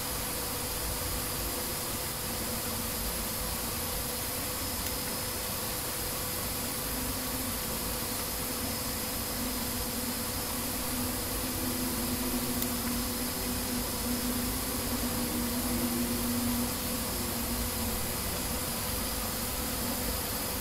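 Steady background hiss with a faint steady hum and a thin high whine; a faint wavering tone comes and goes in the middle.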